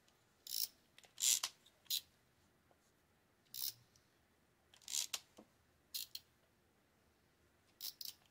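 Small parts of a Shimano TLD 30 two-speed reel clicking and scraping as they are fitted onto the handle shaft during reassembly: a handful of short, irregularly spaced clicks.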